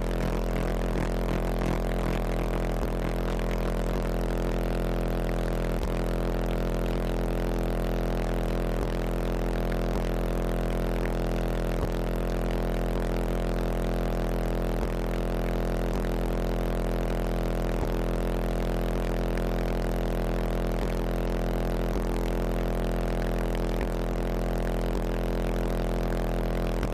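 Competition car-audio subwoofers playing one sustained low bass tone during an SPL run, metered at about 160 dB SPL. It holds steady throughout and comes through heavily distorted, with a buzzing rattle.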